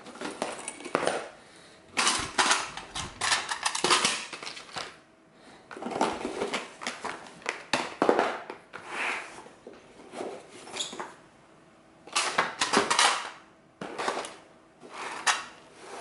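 Clattering and rustling of small hard items handled in and out of a fabric tool tote: plastic boxes, a small aluminium case and batteries in blister packs knocking and crinkling, in irregular bursts with short pauses between.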